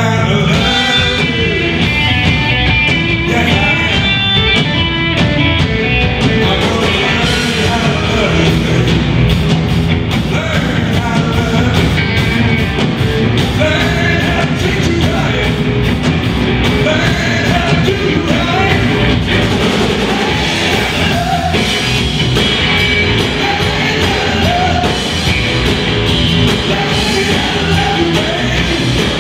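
Live band playing loud rock music: a singer over electric guitars, bass and drums.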